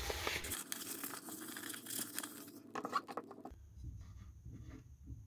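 Dry cloth rag rubbing over a sanded plastic motorcycle side panel, wiping off the sanding dust. It rubs for the first two and a half seconds or so, then a few light knocks as the part is handled about three seconds in, then only faint handling ticks.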